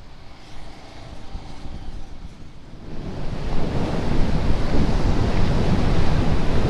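Sea surf breaking against a rock breakwater, with wind buffeting the microphone. It starts suddenly about three seconds in, after a quieter stretch of wind rumble.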